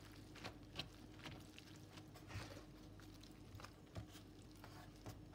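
Faint, soft wet squishing with scattered small ticks as thin egg-soaked yufka pastry sheets are crumpled and gathered by hand in a baking tray.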